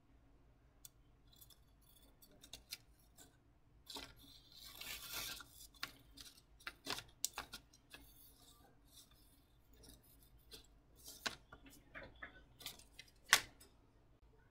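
Fujiwara FKH carbon steel gyuto slicing through a standing paper receipt: crisp paper rustles and cuts, with a longer stretch of paper noise about four seconds in and scattered sharp ticks, the loudest a little before the end.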